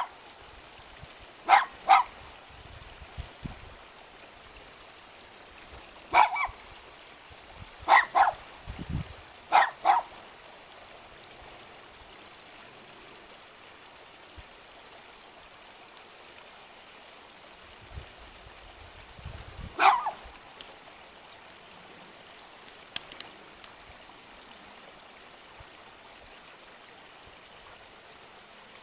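A dog barking in short, sharp barks, mostly in pairs, about nine in all, with a long pause in the middle. A steady hiss runs underneath.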